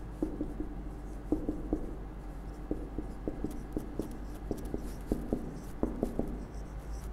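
Marker pen writing on a whiteboard: a quick, irregular series of short squeaks and taps as each stroke is drawn.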